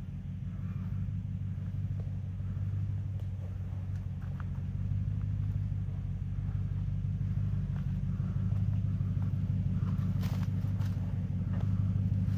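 Off-road truck engine running slowly with a steady low drone that grows slightly louder, as the truck crawls a rocky trail. A few short knocks and rattles come near the end.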